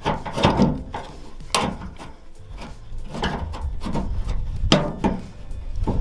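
Tailgate handle assembly rubbing and scraping as it is slid up into a 2010 Toyota Tundra tailgate, with several sharp knocks as it is worked into place.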